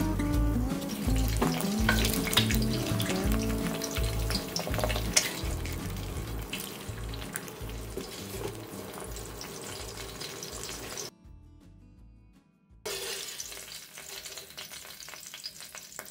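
An egg frying in hot oil in a wok, sizzling with many small pops. The sizzle drops out briefly about eleven seconds in, then resumes.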